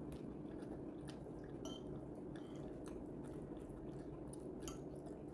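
A person chewing a mouthful of soft food, with small wet mouth sounds and scattered short clicks.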